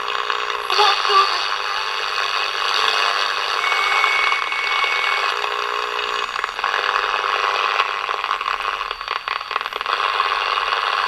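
Captain Six Transistor pocket radio (model YT-161) being tuned between stations: hiss and crackle from its small speaker, thin with no bass, with a steady whistle for about a second and a half near the middle.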